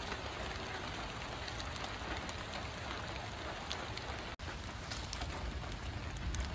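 Steady light rain falling, with scattered small drop ticks; the sound cuts out for an instant a little over four seconds in.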